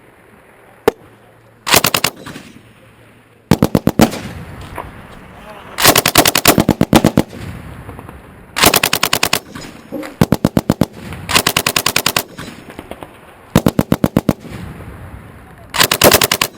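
M240B medium machine gun firing 7.62x51 in short bursts of about four to eight rounds, around ten rounds a second, with roughly eight bursts about two seconds apart. A single shot comes about a second in.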